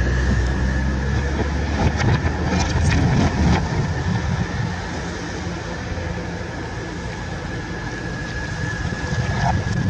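A machine running steadily with a constant high whine over a deep rumble; the rumble drops away about three and a half seconds in, and a few clicks and knocks come between two and three and a half seconds in.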